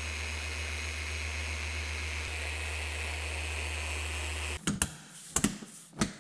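Flex XC3401 forced-rotation dual-action polisher running steadily on a truck bumper with finishing polish, then cutting off abruptly about four and a half seconds in. A few knocks and handling sounds follow.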